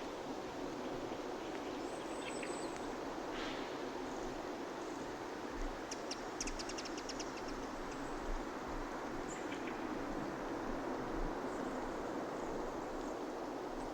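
Birds calling over a steady background hum of outdoor noise, with a quick run of high chirps about six seconds in and a few single short calls.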